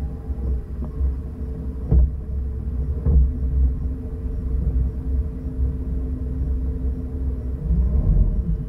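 Chris-Craft Speedster motorboat's engine running at low speed, a steady low rumble, with a couple of brief knocks about two and three seconds in.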